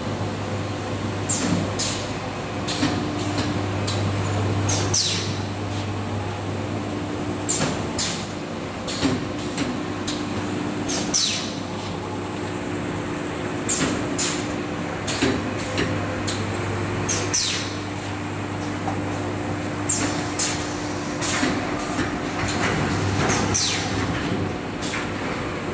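Automated paint roller finishing line running: a steady machine hum and drone, with short high swishes falling in pitch every one to two seconds as the stations cycle.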